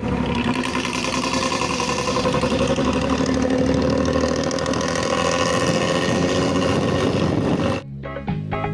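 Intercity bus engine running steadily through an open exhaust, giving the deep 'ngorok' (snoring) rumble. Near the end it cuts off suddenly and music with a beat begins.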